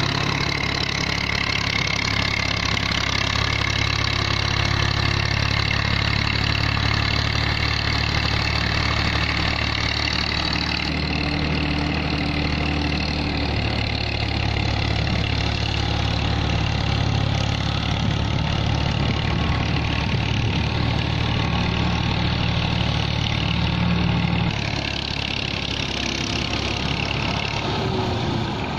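Massey Ferguson 240 tractor's three-cylinder diesel engine running steadily under load, dragging a cultivator and wooden levelling plank through a flooded rice field. The engine note shifts about eleven seconds in and drops slightly near the end.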